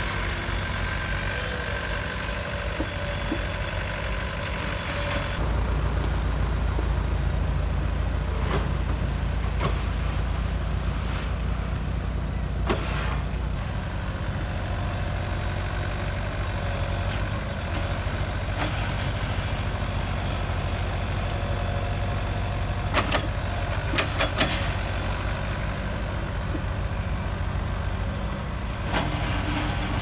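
Diesel engines of heavy road-building machines running steadily. A Yanmar mini excavator works at first; at about five seconds the sound turns to a deeper, stronger rumble from a motor grader driving over a gravel roadbed. A few sharp knocks come late on.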